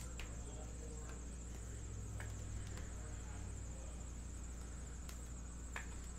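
Trading cards and plastic card sleeves being handled, making a few faint clicks over a steady low hum and a thin high whine.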